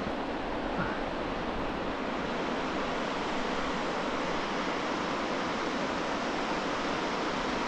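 Steady rush of fast-flowing water, an even hiss-like roar with no breaks.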